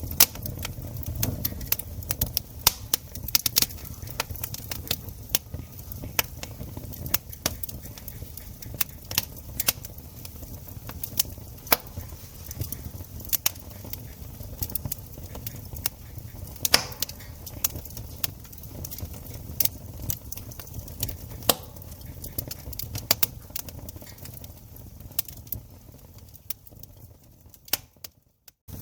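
Campfire crackling: wood burning with many irregular sharp pops and snaps over a steady low rumble of the flames. The sound fades and drops out briefly near the end before returning.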